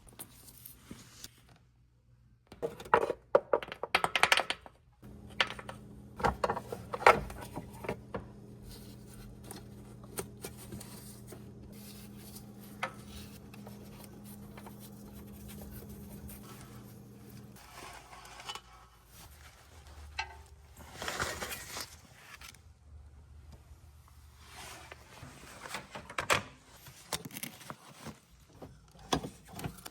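Metal hand tools clinking, clicking and scraping against engine parts in irregular knocks, with a steady low hum for about twelve seconds in the middle.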